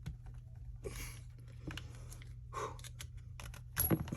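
Scattered light clicks and taps of Glock 43 pistol parts being handled and fitted by hand during disassembly, with a louder clack near the end.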